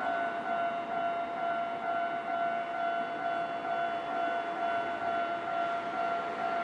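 Japanese railway level-crossing warning bell ringing steadily, an electronic alarm with a clear high tone, over a constant background noise.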